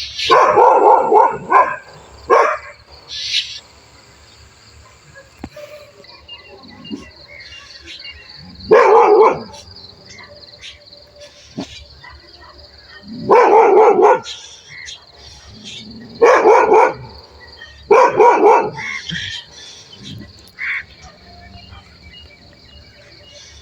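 A dog barking in loud, short bouts: a quick run of barks at the start, then single bouts spaced a few seconds apart.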